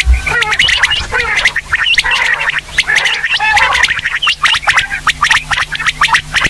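Female quail calling: a dense, rapid chatter of short chirping notes, many each second, without pause. It is a recording played as a lure for quail hunting.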